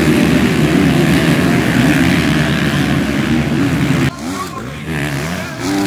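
Motocross bike engines at full throttle, loud and dense. About four seconds in the level drops suddenly, and single engine notes rise and fall as the riders work the throttle over a jump.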